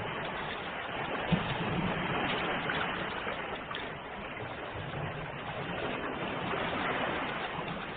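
Ocean surf: a steady rush of breaking waves, with one short knock about a second in.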